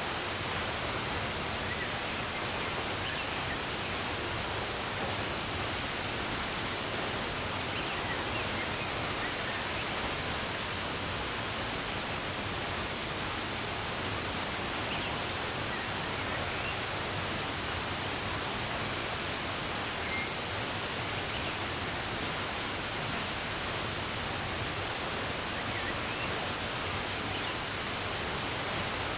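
Running water rushing steadily, with faint, scattered bird chirps above it.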